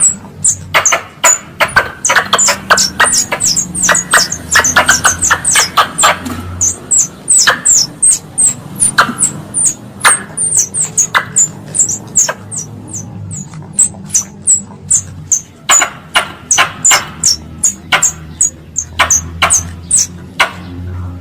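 Squirrel calling: an irregular run of sharp, high chips, several a second, each with a brief falling squeak, over a faint low hum.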